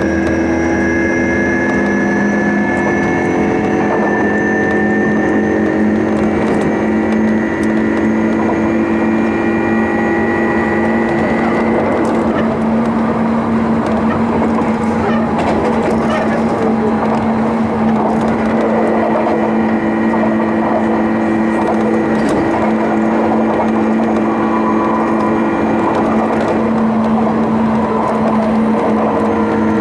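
Running sound inside a Sotetsu New 7000 series electric train car with a Hitachi GTO-thyristor VVVF inverter: steady inverter and traction-motor tones over wheel and rail noise. The higher tones glide slowly and fade for several seconds midway, then come back.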